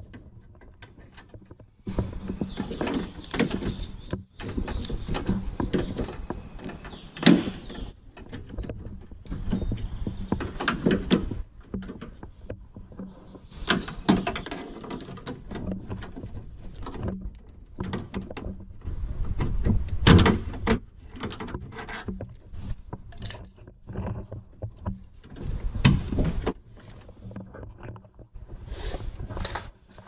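Screwdriver and hand work inside a Toyota Yaris front door: irregular clicks, knocks and scraping against the door-lock linkage rods and the sheet-metal door shell, in spells of a few seconds with short breaks.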